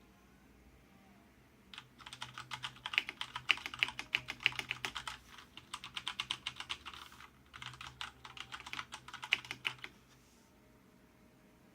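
Typing on a Fnatic Rush mechanical keyboard with Cherry MX Brown switches: quick runs of key clacks in three bursts with short pauses between them.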